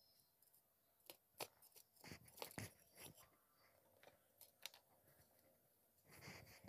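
Quiet, sharp crackles and crunches of dry terracotta clay, in scattered clicks with a denser cluster a couple of seconds in and another near the end.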